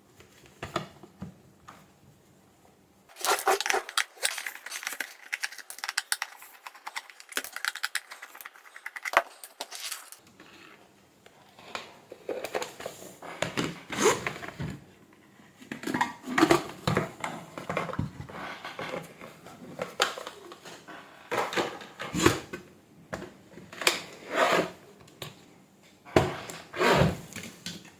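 Electric kettle base being taken apart by hand: screws undone and the plastic cover worked off, with a dense run of scraping and clicking a few seconds in, then scattered clicks and knocks of plastic parts being handled.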